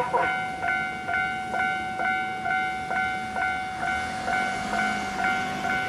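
Japanese railway level-crossing alarm ringing its repeated two-a-second 'kan-kan' bell tone, the signal that a train is approaching. A low rumble builds under it in the later seconds.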